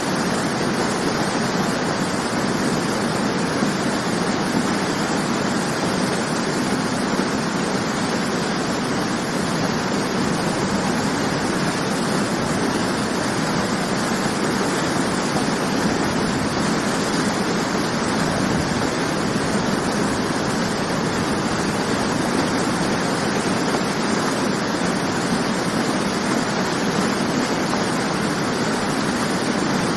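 Waterfall: water falling and churning in a steady, unbroken rush.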